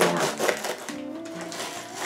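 Background music with held notes and a run of plucked or strummed strikes.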